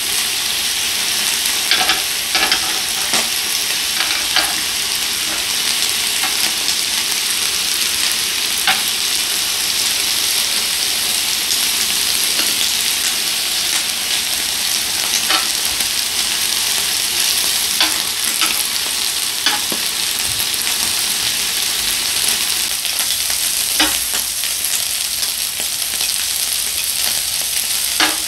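Beef intestines (small intestine, large intestine and abomasum) and beef heart sizzling on a hot grill plate, a steady hiss, with scattered clicks and scrapes of tongs turning the pieces.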